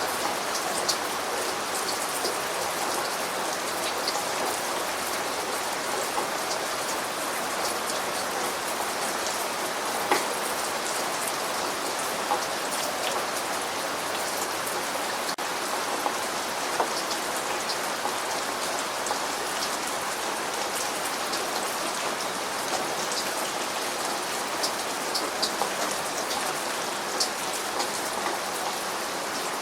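Steady rain falling on a surface: an even hiss with scattered louder individual drops ticking through it.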